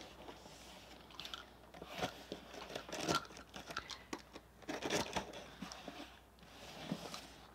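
Box cutter slitting the packing tape on a cardboard shipping box: irregular scratching, crackling and tearing as the blade runs along the tape, with sharp clicks and scrapes as the box is handled and turned.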